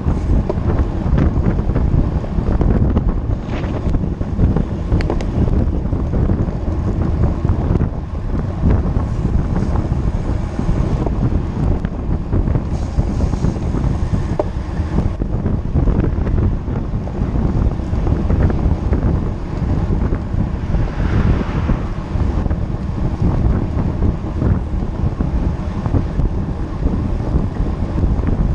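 Loud, steady wind noise buffeting the microphone of a camera riding along on a road bike at speed, heaviest in the low range.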